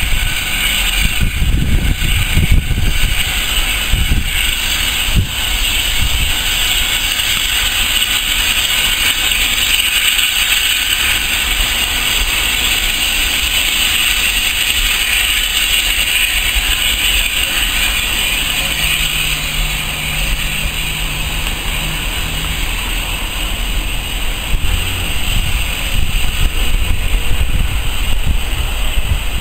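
Steam-hauled heritage train passing: the steady running noise and hiss of the locomotive and carriages rolling along the line. There are low gusts of wind on the microphone in the first few seconds.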